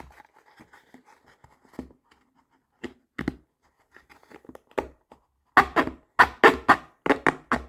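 Serrated knife scraping and sawing through the fabric of a case, its teeth catching and pushing material away. A few faint scratches at first, then a run of quick, loud strokes, about five a second, from just past halfway on.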